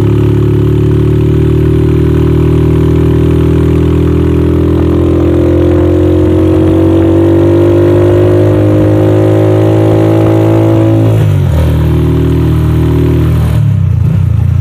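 Motorcycle engine of a tricycle (a motorcycle with a sidecar) running under way, its pitch rising steadily for about eleven seconds as it picks up speed, then dropping suddenly and changing again near the end.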